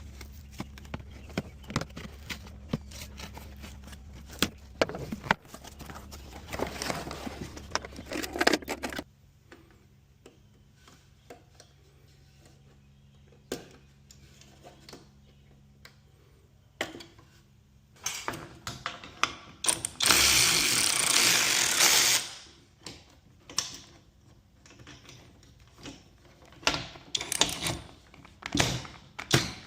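Tool work on a garage door opener installation: irregular clicks, knocks and rattles of tools and parts, with a loud two-second burst of power-tool noise about twenty seconds in.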